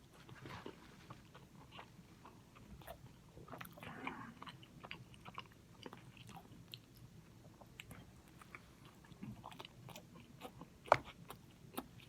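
Close-miked chewing of a crispy buffalo chicken sandwich: soft crunches and wet mouth clicks, with one sharper click near the end.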